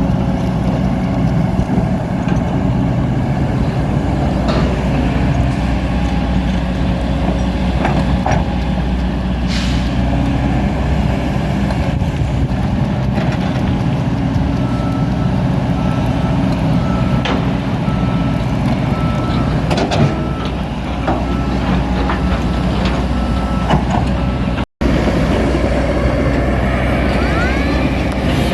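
Kobelco SK200 excavator's diesel engine running steadily under digging load, with scattered knocks and scrapes from the bucket working the soil. An evenly repeating warning beep joins from about halfway and stops where the audio briefly cuts out, about three-quarters of the way through.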